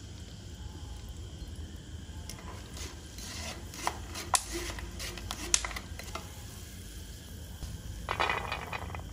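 A steel spoon clinks a few times against a wire-mesh strainer while raw peanuts fry in oil in a kadhai, over a faint steady sizzle. Near the end comes a short rustling clatter as the fried peanuts are tipped out of a steel bowl onto kitchen paper.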